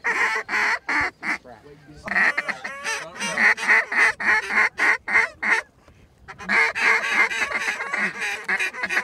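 Goose honks and clucks in rapid runs, about three to four a second, breaking off twice, once about a second and a half in and again near six seconds.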